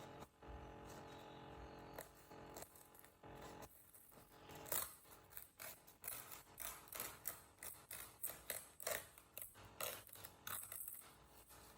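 Paper towel handled close to the microphone: from about four seconds in, an irregular run of short, crisp crinkles and taps. Underneath, a steady faint hum, which the uploader takes for laptop noise.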